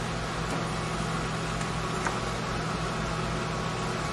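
Steady electric hum of a homemade smoke machine running as it pushes smoke into a chainsaw engine for a crankcase leak test, with one faint click about two seconds in.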